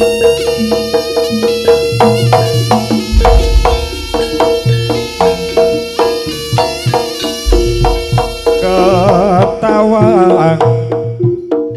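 Jaranan gamelan music: fast hand-drum patterns and struck metal notes over a held note, with a deep gong-like stroke twice. A wavering melody line comes in about two-thirds of the way through.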